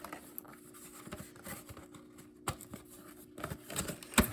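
A smoke alarm's retail box being opened and its packaging handled by hand: scattered light clicks and rustles, a sharp click about halfway through, and a louder knock near the end.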